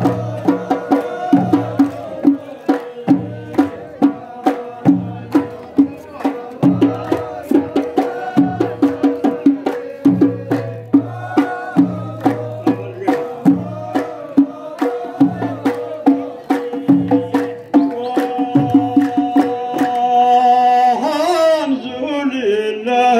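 Live folk music: hand drums beat a steady rhythm, with deep strokes about once a second and quick sharp strikes between, over a held droning tone. Near the end the drumming drops away and a held high note slides into singing.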